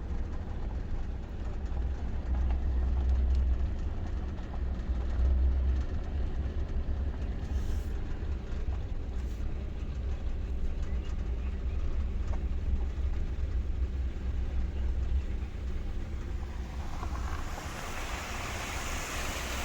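Steady low vehicle rumble of a car on the move. About three-quarters of the way through, the rushing hiss of flowing water rises in and keeps growing.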